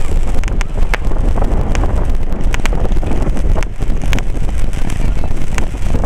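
Fireworks display heard close up: a dense, continuous low rumble of shell bursts, loud on the microphone, with sharp cracks about once a second.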